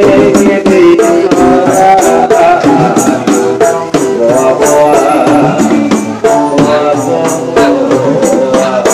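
Live street music: an acoustic guitar strummed in a steady, even rhythm with percussion keeping the beat.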